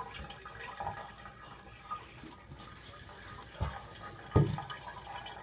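Water splashing and dripping in a bathtub as a wet cat is washed by hand, with two dull knocks about four seconds in.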